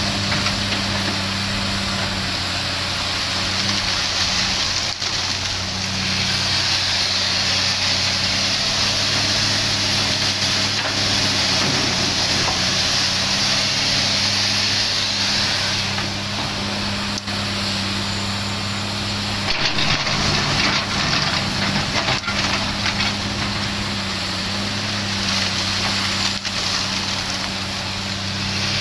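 Komatsu PC300 hydraulic excavator's diesel engine running steadily as it digs coal and swings to load a dump truck. A hiss rises and falls over the engine hum, and there are a few short knocks.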